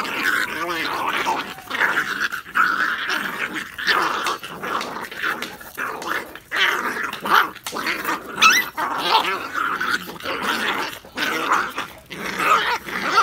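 Phu Quoc ridgeback puppies growling and snarling as they wrestle in play, in rough uneven bursts, with a brief high rising cry about eight seconds in.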